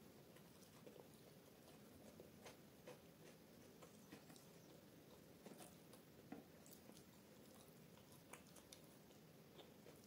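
Faint close-up chewing of soft flatbread, with small wet mouth clicks scattered irregularly, along with light ticks of fingers tearing paratha and picking paneer off a plate.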